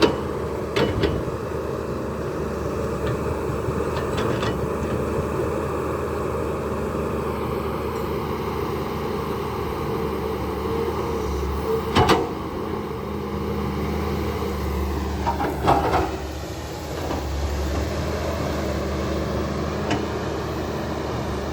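Backhoe excavator's diesel engine running steadily at work, with a few sharp knocks, the loudest about twelve seconds in and again a few seconds later.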